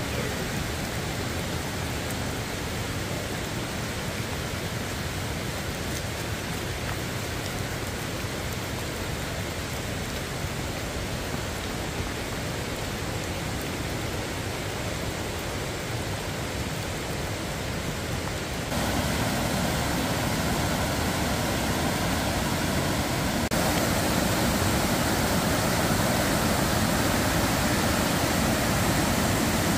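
Steady rushing noise of rain and a fast mountain stream running through rapids, growing louder about two-thirds of the way through.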